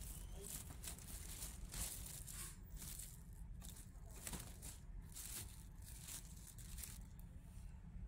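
Clear plastic wrapping bag crinkling and rustling in short irregular bursts as it is handled and pulled off a printer, over a low steady background hum.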